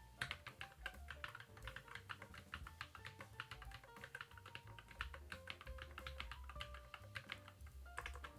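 Fast typing on a Keychron Q11 mechanical keyboard with Cherry-profile double-shot PBT keycaps: a quick, steady run of key clacks with a short pause near the end before it picks up again. Background music plays underneath.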